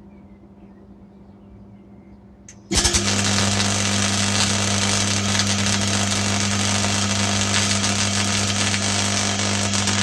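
MIG welding arc running a bead under argon/CO2 shielding gas: a loud, steady crackling sizzle with a low electrical hum underneath. It starts suddenly about three seconds in.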